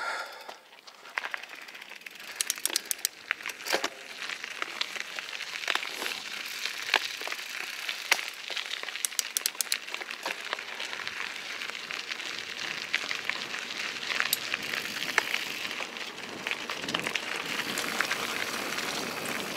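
Rocky Mountain Instinct mountain bike rolling along a dirt trail: tyre crackle and gravel crunch with scattered sharp clicks and rattles. The noise builds gradually as the bike picks up speed.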